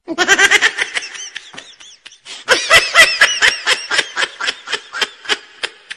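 High-pitched laughter in rapid ha-ha pulses: a short burst at the start, a pause, then a longer run of laughing from a couple of seconds in.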